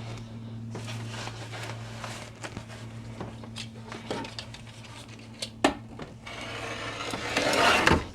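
Tearaway embroidery stabilizer being handled and cut with scissors: scattered small clicks and snips, one sharp click a little past halfway, and a louder rustle near the end, over a steady low hum.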